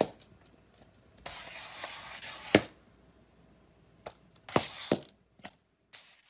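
A stiff cone collar on a cat knocking and scraping against a tiled floor. A scrape about a second in ends in a sharp knock, followed by a few lighter taps near the end.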